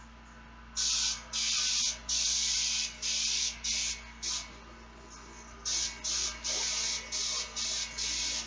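Airbrush spraying acrylic paint in about a dozen short hissing bursts as the trigger is pressed and released, with a pause of about a second midway. A faint steady hum runs underneath.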